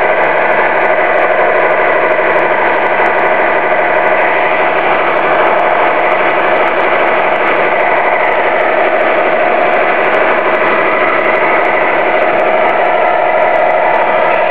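Radio-controlled model semi truck driving, heard with the microphone riding on the truck itself: a loud, steady engine-like running noise with a fast, even pulse and no change in pace.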